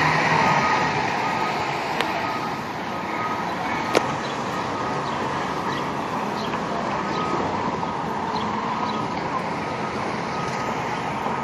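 Fire engine backing up, its backup alarm beeping steadily over the running engine. There is a sharp knock about four seconds in.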